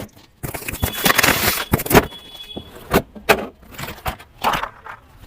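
Rustling, clicks and rattles from handling a toy RC car and its plastic packaging, with two brief thin high whines.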